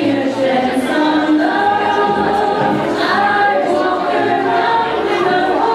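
Women's choir singing an up-tempo pop number, several voices in harmony.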